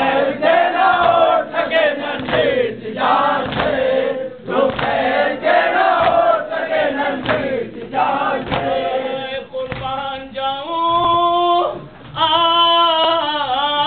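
A group of male mourners chanting an Urdu noha lament in unison, unaccompanied.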